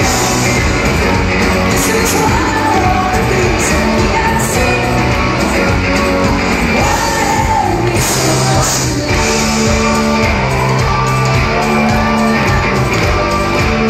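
Live rock band playing: a female lead vocal sung over electric guitar, keyboards, bass and drums, with the audience shouting and singing along. The sound is loud and steady, with the reverberation of a large hall.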